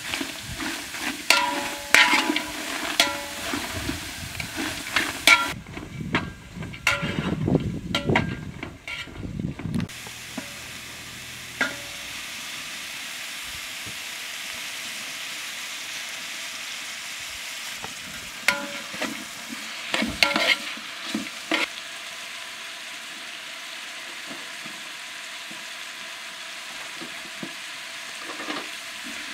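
Sliced onions sizzling in a large aluminium pot, with a slotted metal ladle clinking and scraping against the pot as they are stirred. The clinking is busiest in the first ten seconds and comes again about twenty seconds in, over a steady hiss of frying.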